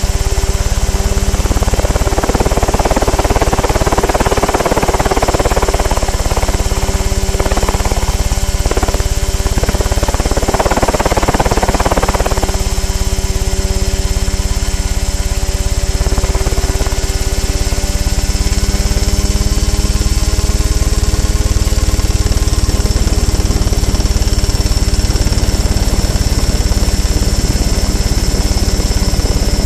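Mosquito ultralight helicopter's engine and rotor running steadily through liftoff and climb-out. A rushing noise lies over it for the first dozen seconds or so.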